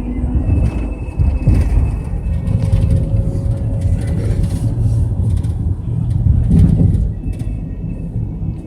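Engine and road rumble heard from inside a small bus driving along, swelling louder twice.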